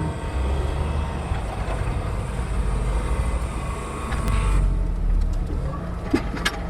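Heavy diesel machinery running with a steady low engine rumble, with a few sharp metallic clanks near the end.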